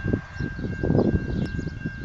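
Wind buffeting the microphone in gusts, with a steady high-pitched tone running underneath and faint bird chirps. A single sharp click near the end.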